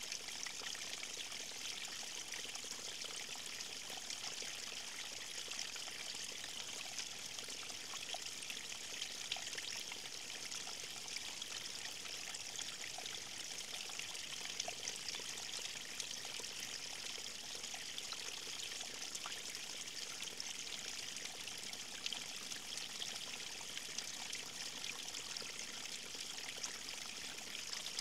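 River stream water running over stones, a steady trickling and splashing with many small fine droplet sounds.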